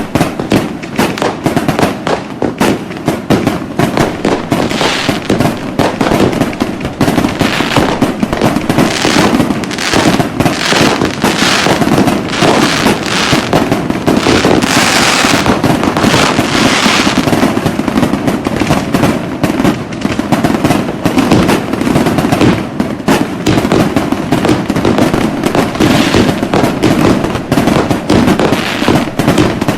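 Fireworks going off without a break: rapid bangs and crackling one over another, with a denser burst of crackle around the middle.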